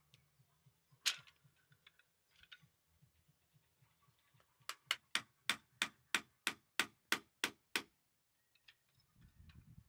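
Bamboo stakes being knocked into a hard clay pit wall: one sharp knock about a second in, then a quick run of eleven sharp knocks, about three a second, around the middle.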